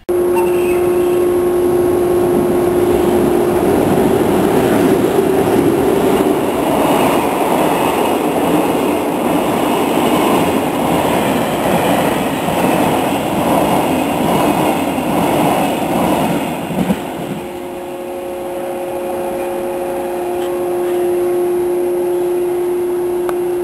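Freight train of tank wagons running through a station at speed: steady clatter of wheels over rail joints, dying away about two thirds of the way through as the last wagon passes. A steady tone is heard at the start and again after the clatter fades.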